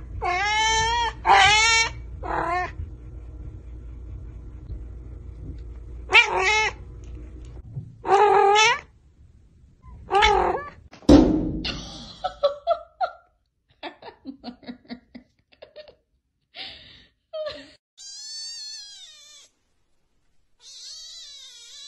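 Cats meowing: a string of drawn-out, pitch-bending meows from an adult cat, then a kitten's higher, thinner mews near the end. A quick run of faint clicks comes in the middle.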